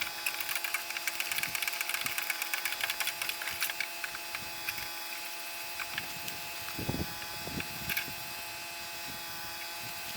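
Wrench work on the mower's bolts: a run of small rapid metallic clicks in the first few seconds, then scattered knocks about seven seconds in, over a steady background hum.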